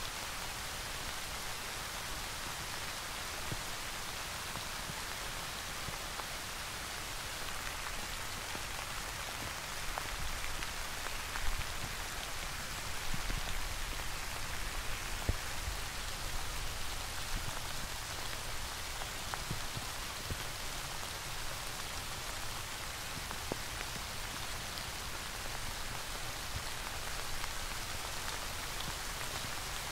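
Steady rain: a continuous hiss with individual drops striking close by, thicker and louder for a few seconds from about ten seconds in, with one sharp drop hit near the middle.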